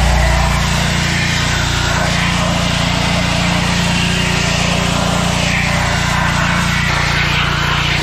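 A machine running steadily, with a low hum under a broad hiss.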